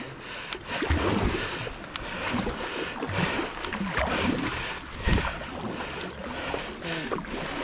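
Double-bladed kayak paddle dipping and pulling through river water, stroke after stroke on alternating sides, with splashing and water washing along the hull.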